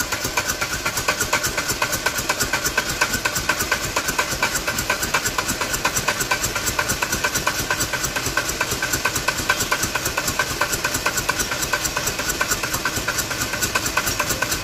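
Renault Duster's common-rail diesel engine idling with a steady, fast, even diesel clatter and a hiss over it.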